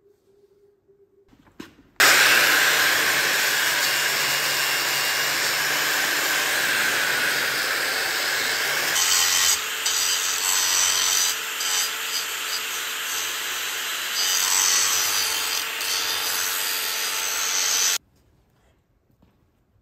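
Angle grinder grinding the steel shaft of a potato grader roller. The grinder starts about two seconds in and runs steadily, its sound changing about halfway through, then cuts off abruptly shortly before the end.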